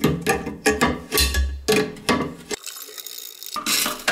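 Clicks, knocks and light clinks of hard plastic against ceramic as the old plastic side-entry fill valve is unscrewed by hand inside a toilet cistern. The handling stops briefly about two and a half seconds in, then resumes.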